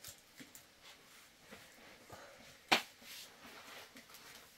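One short, sharp click or knock a little past the middle, against quiet room tone.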